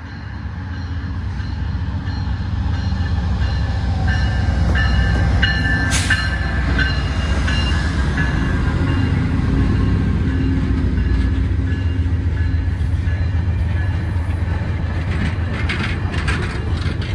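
A VIA Rail P42DC diesel locomotive and its stainless-steel Budd passenger cars roll past close by. The low rumble of engine and wheels builds over the first few seconds as the locomotive approaches, then holds steady as the cars go by. Brief high-pitched tones and a sharp crack come about five to six seconds in, and a run of wheel clicks comes near the end.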